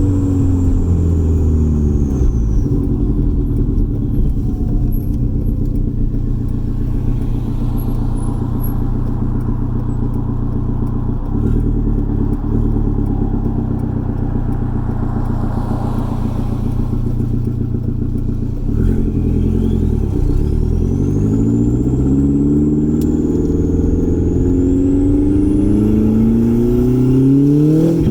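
Turbocharged four-cylinder engine of a B5 Audi A4 on a K03 turbo, driving: the engine note falls as the car slows, holds steady while it cruises, then climbs steadily as it accelerates through the last third, with a high whine rising along with it.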